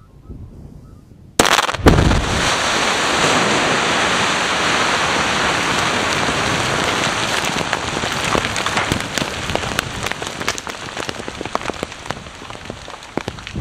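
Quarry production blast: explosive charges in the rock face go off about a second and a half in with a sharp crack and a deep boom. A long rushing clatter of shattered rock and debris falling back follows, full of separate rock impacts, slowly dying away.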